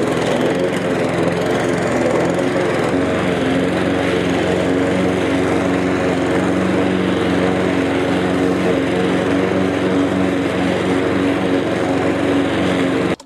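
Cobra MX534SPH 21-inch rotary lawn mower with a Honda petrol engine, running steadily under load as it cuts and mulches grass. The engine note shifts slightly about three seconds in.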